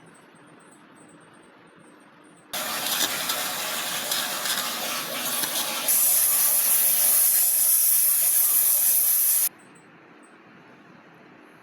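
Dental air-water syringe spraying: a loud hiss starts abruptly, turns louder and sharper about three seconds later, as it would when water-and-air rinsing gives way to air-only drying of the tooth, and stops suddenly after about seven seconds.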